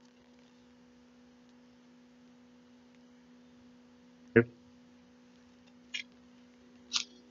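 Handling of a vinyl LP in a plastic outer sleeve: a short thump about four seconds in, then two brief plastic crinkles near the end as the record is turned over, over a faint steady hum.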